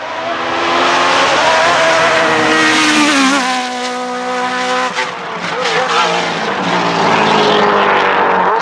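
Suzuki GSX-R 1300 inline-four motorbike engine in a hillclimb prototype car, running loud at high revs. Its pitch dips and climbs a few times as it accelerates.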